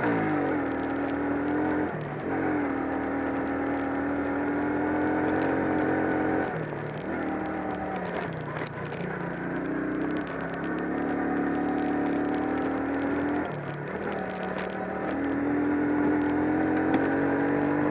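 Single-cylinder 250 cc ATV engine running under load on a rough dirt trail. Its pitch drops and climbs back several times as the throttle is eased and opened again, with scattered rattles and knocks from the bumpy ride.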